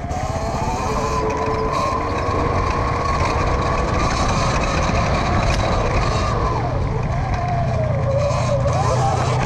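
Electric dirt bike riding off-road, the E-Ride Pro SS's motor whining over a steady rumbling noise. The whine rises about a second in and holds steady, then falls and wavers up and down with the throttle near the end.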